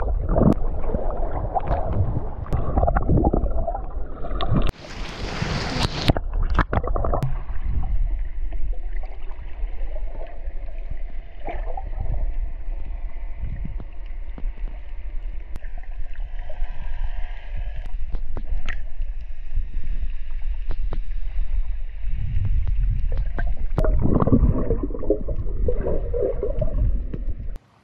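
Underwater audio from a camera held below the surface while swimming: muffled water rushing and gurgling with a deep rumble and scattered small clicks, and a brief brighter hissing splash about five seconds in.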